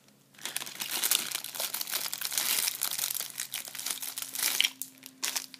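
Clear plastic bags crinkling as hands rummage through a plastic tub of bagged items. The crinkling runs steadily for about four seconds, then gives way to a few light clicks near the end.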